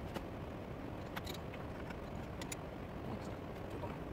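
Light metallic clicks and taps of hand tools being handled at a metal lathe's chuck and tool post, with one sharper click at the start, over a steady low workshop hum.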